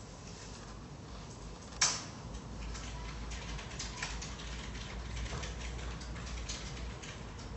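Fingertips tapping the glass touchscreen of an Ainol Novo 7 Venus tablet while hands handle it. There is one sharp, louder click about two seconds in, then a run of small taps and clicks over a low handling rumble.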